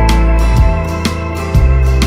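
Background music with steady bass notes and a regular beat, keyboard or organ-like chords with slide-guitar sounds around it.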